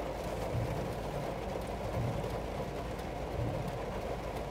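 Heavy rain falling on a car, heard inside the cabin as a steady hiss over the low hum of the car's engine running, with the windscreen wipers sweeping.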